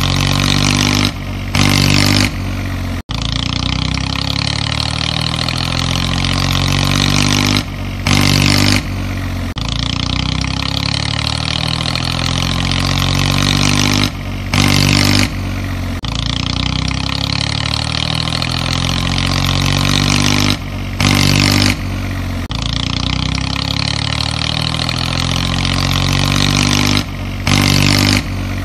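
Tractor engine sound running, with short revs and breaks, the same few seconds repeating about every six seconds like a looped sound effect.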